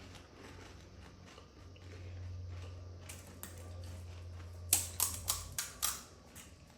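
Crisp panipuri shells being bitten and chewed, with a quick run of five or six sharp crunches about two-thirds of the way in, over a low steady hum.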